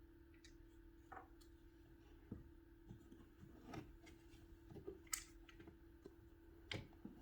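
Faint, scattered clicks and knocks of hands working inside a wall opening, with the sharpest one about five seconds in. A steady faint hum runs underneath.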